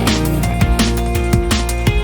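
Background music: electronic track with a fast drum-and-bass style beat over sustained synth tones.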